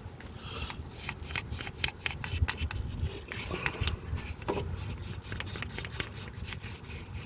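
Small brush scrubbing and scraping brake dust and grime out of the wheel-bearing bore of the hub carrier, in quick repeated rasping strokes.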